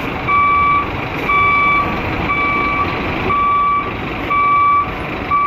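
Reversing alarm of a Scania coach beeping steadily about once a second, each beep about half a second long, over the rumble of its diesel engine as it manoeuvres.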